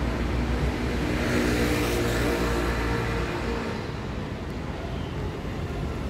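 City street traffic with a motor vehicle's engine passing by, loudest about two seconds in and then fading.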